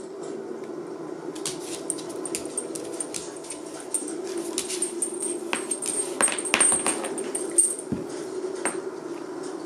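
Shiba Inu and bull mastiff tugging a rope toy: steady low growling, with clicks and rattles from claws on the floor and metal chain collars. The clicking is busiest from about one and a half to eight seconds in.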